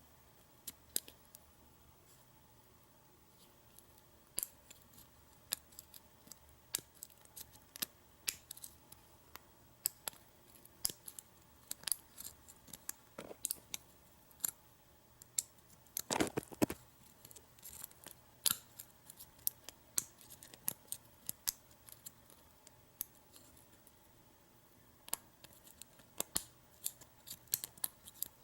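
Lock picks and a tension wrench working in a padlock's removed lock cylinder: light, irregular metal clicks and scrapes, with a louder clatter about halfway through.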